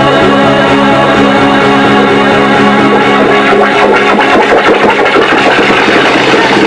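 Loud electronic dance music from a DJ set: held, distorted synth chords that give way to a denser, rapidly pulsing section about halfway through.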